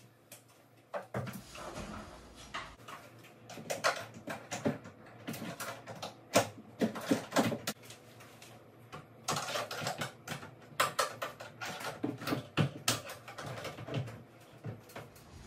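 Irregular clicks, knocks and light clatter of hand work with cabinet parts and hardware, coming in clusters of several a second.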